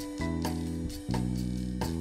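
Intro theme music: sustained instrument notes over regular drum hits.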